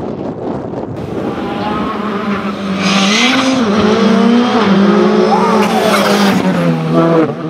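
Škoda Fabia R5 rally car's turbocharged four-cylinder engine approaching and passing at speed, loud, its pitch rising and dropping several times through gear changes, with a short hiss about three seconds in.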